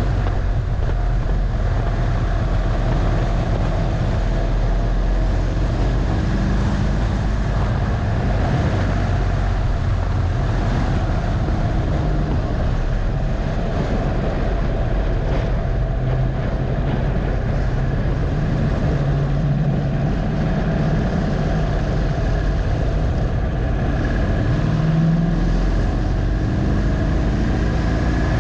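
2015 Harley-Davidson Dyna Low Rider's Twin Cam V-twin engine running hard on track from a bike-mounted camera, with wind rush over the microphone. The engine note eases as the bike slows through a corner and rises as it accelerates near the end.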